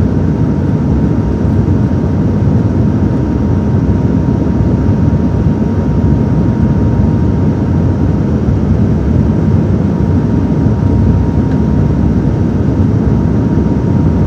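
Steady cabin noise of an Embraer 195-E2 airliner in flight: an even rush of engine and airflow noise, heaviest in the low end, with a thin steady whine above it.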